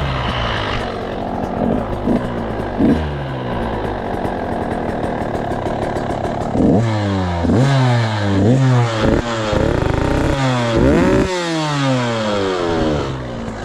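Small motorcycle engine breathing through an FMF Shorty aftermarket exhaust pipe, running at low revs with a couple of short throttle blips. From about halfway on, it is revved repeatedly in quick bursts, each climbing and falling back, about seven or eight times.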